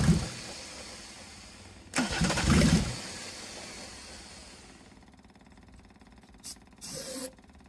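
Mercedes-Benz OM606 inline-six diesel firing briefly on starter fluid: a burst of running fading at the start, another about two seconds in that dies away, a sign the engine won't yet keep running on its own fuel. Near the end come two short hisses of starter fluid sprayed into the intake.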